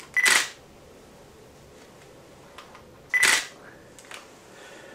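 DSLR shutter fired twice, about three seconds apart. Each shot opens with a short high beep.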